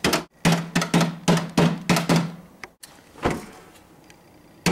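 Keypad keys tapped about seven times in quick succession, three or four a second, then once more about a second later: a purchase being rung up.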